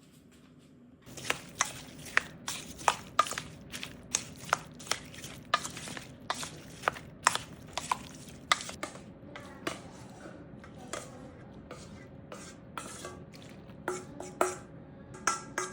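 A utensil stirring cubed watermelon in a bowl, clicking against the bowl about twice a second from about a second in. It is mixing nori into the watermelon marinade.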